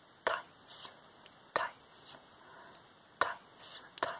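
Close-mic ASMR whispering: four sharp clicks, the first three each followed a moment later by a short, soft, breathy whisper.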